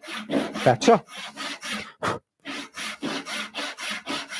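Hand saw cutting a tenon cheek in wood with quick, even back-and-forth strokes, about three to four a second, with a short break about two seconds in.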